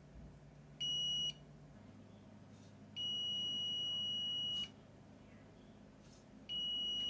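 A digital multimeter's continuity buzzer gives three high-pitched beeps: a short one about a second in, a longer one of about a second and a half, and another starting near the end. Each beep marks the repaired wiper-motor park switch's contacts closing, showing the switch works.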